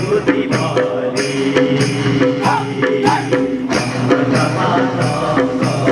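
Dance music with a steady beat of about two to three strikes a second, held melody notes and jingling percussion, accompanying a khukri dance.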